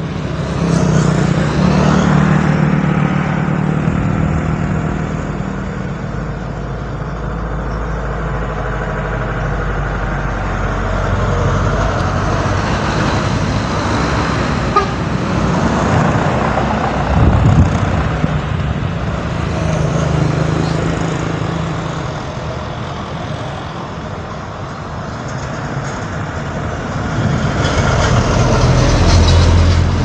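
Diesel coach bus engine running as the bus passes close by on the bend, its low drone swelling and fading. Another vehicle's engine rises near the end.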